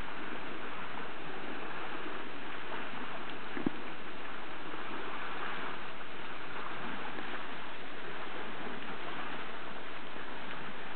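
Steady hum and hiss of a boat motor running, with a faint held tone under it. A single soft click comes about three and a half seconds in.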